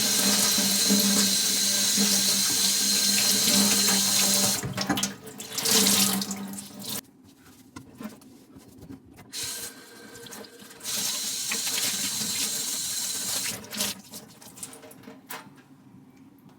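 Tap water running into a sink, turned off about seven seconds in and run again for a few seconds, with a few small knocks near the end.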